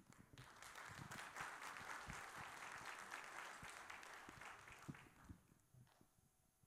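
Audience applauding lightly, the clapping fading away about five and a half seconds in.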